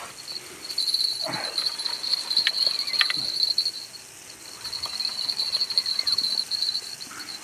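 Crickets chirping in a steady, high, pulsing trill, with a couple of faint sharp ticks about two and a half and three seconds in.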